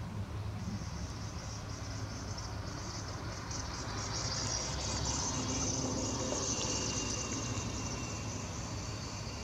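Insects chirping in a high, fast-pulsing buzz that swells in the middle, over a steady low rumble.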